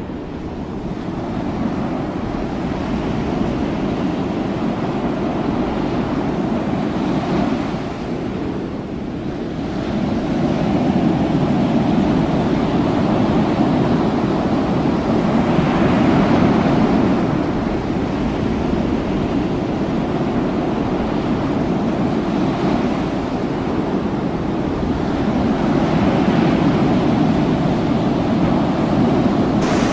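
Sea surging and washing against an open door of a ship's lower deck, the sound swelling with each swell every few seconds. Near the end seawater comes pouring in over the sill onto the deck, and wind buffets the microphone throughout.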